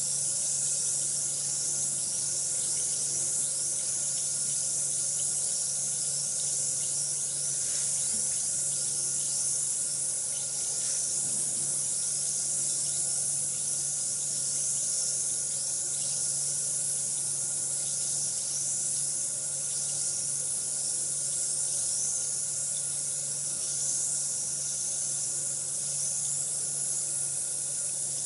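Bath bomb fizzing steadily as it dissolves in water: a continuous hiss of tiny popping bubbles.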